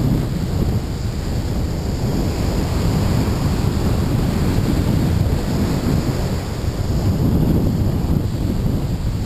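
Wind buffeting the microphone over the steady wash of breaking surf, a loud, continuous low rumble.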